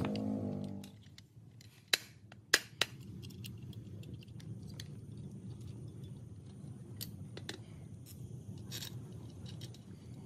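A pitched hum dies away in the first second. Then come three sharp clicks or clinks about two to three seconds in, with scattered fainter clicks over a low steady hum.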